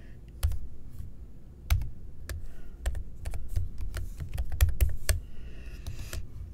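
Typing on a computer keyboard: an irregular run of key clicks that stops about five seconds in.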